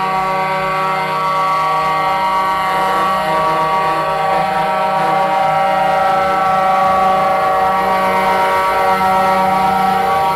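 Lorry air horns sounding together in one long, unbroken chord of steady tones as the trucks drive slowly by.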